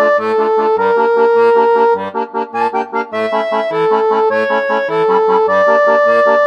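Upbeat instrumental background music: a melody of held notes over an oom-pah accompaniment of alternating bass notes and short chords.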